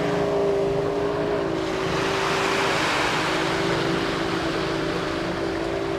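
An engine running steadily at a nearly constant pitch, dipping slightly a couple of times, over a steady wash of surf and wind noise.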